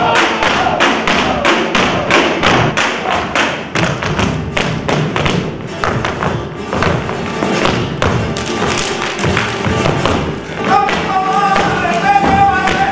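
Rhythmic knocking of a wooden stick on an old metal drum, about four beats a second, beating out a flamenco rhythm. Near the end a man's voice comes in with a wavering, drawn-out flamenco lament.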